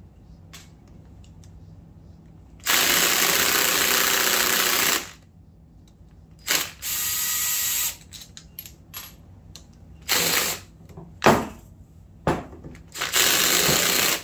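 Cordless drill with a long socket extension running in repeated bursts, spinning bolts out of the side cover of a 1989 Suzuki LT250R two-stroke engine case. The longest run lasts about two seconds, with several shorter ones near the end and small clicks of tools and bolts between them.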